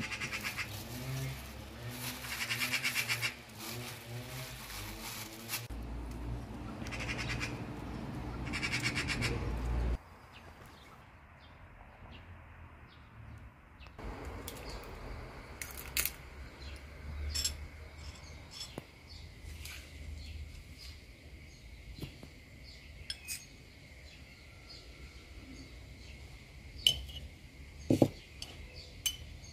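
Background music for about the first ten seconds, then quieter open-air ambience with short bird chirps. Near the end come a few sharp clinks of a metal spoon against a glass jar.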